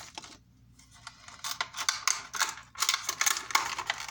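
Plastic wrapping crinkling and crackling in quick, dense rustles as it is handled, starting about a second and a half in after a brief lull.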